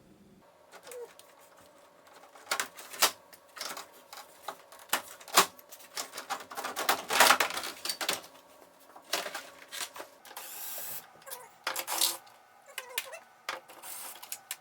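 Irregular clicks, snaps and knocks of hard plastic parts being handled and worked loose: plastic trim screws and the windshield washer spray hose being undone. A few longer scraping sounds come near the end.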